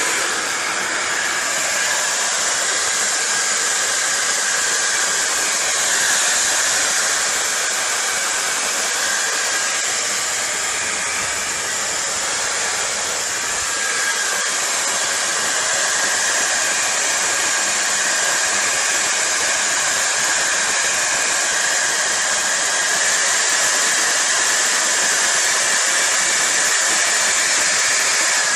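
Hair dryer running steadily, a continuous rush of blown air with a faint high whine from its motor.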